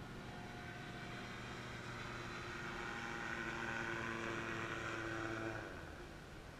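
Engine of another ultralight trike running some way off, a steady hum that grows louder for about five seconds and then falls away sharply a little before the end.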